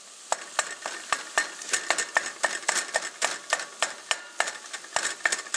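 Ground chicken frying and sizzling in a stainless steel saucepan while a wooden spoon stirs it, knocking and scraping against the pan several times a second.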